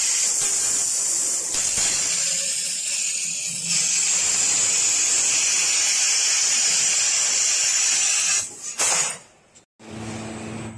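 6 kW fiber laser cutter cutting 10 mm carbon steel: a loud, steady hiss of the assist-gas jet through the nozzle and the cut. It stops about eight and a half seconds in, followed by one short burst of hiss, then a quiet low hum near the end.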